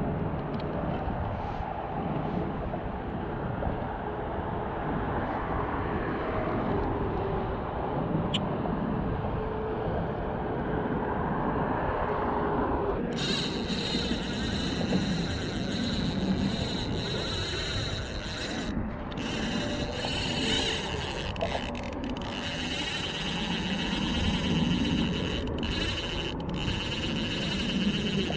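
Steady road traffic noise from cars crossing the bridge. About thirteen seconds in the sound changes abruptly and a thin high hiss comes in.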